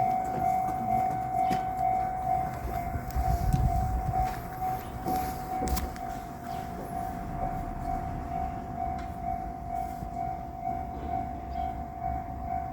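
Japanese level crossing's electronic warning bell ringing steadily. A low rumble swells about three to four seconds in.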